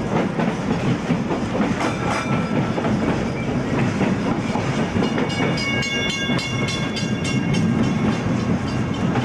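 Vintage Melbourne W2-class tram rolling along street track: a steady rumble with wheel clatter. About five seconds in, a bell rings rapidly for a couple of seconds.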